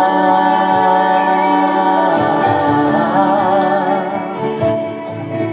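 A woman and a man singing in duet into microphones, holding the last long note of a worship song over instrumental backing; the music fades away near the end.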